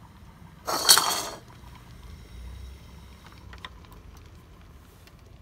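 Glass pot lid clattering briefly on a stainless steel pot about a second in, then a few faint clicks as a portable gas camp stove's control knob is turned to off.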